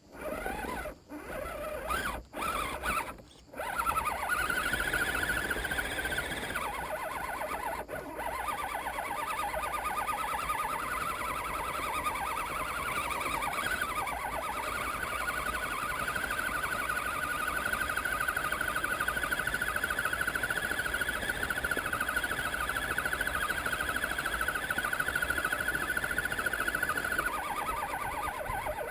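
Electric motor and gear drive of a 1/10 Axial SCX10 scale crawler whining while driving, picked up by a camera mounted on the truck. A few short stop-start bursts come in the first few seconds, then a steady, slightly wavering whine that drops in pitch near the end.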